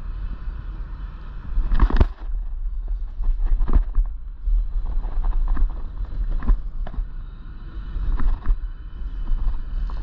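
Wind buffeting the microphone on a kayak, a steady low rumble, with irregular knocks and rattles from the kayak and fishing tackle while a hooked bass is fought on a bent rod. The loudest knock comes about two seconds in.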